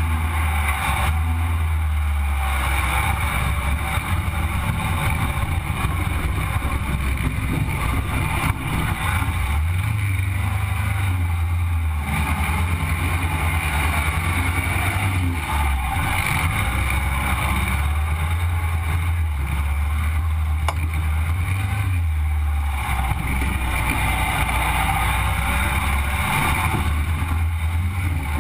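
Sandrail's engine running as it drives. Its low note steps up and down several times as the throttle changes.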